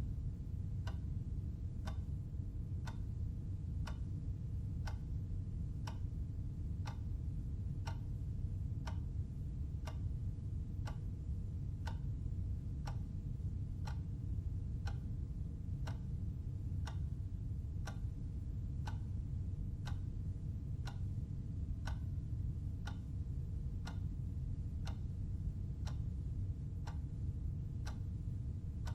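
Clock ticking steadily at about one tick a second, over a steady low hum.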